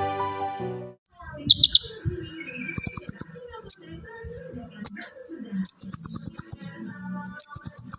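Background music fades out in the first second. Then a sunbird (kolibri ninja) sings in a string of quick, high trilled phrases and short chirps, a new phrase every second or so.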